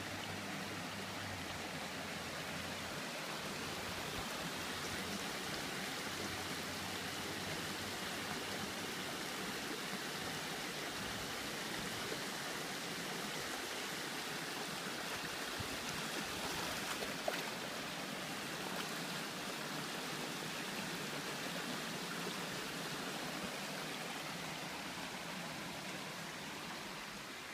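Shallow rocky creek running over stones: a steady, even rush of rippling water, with one brief click about two-thirds of the way through.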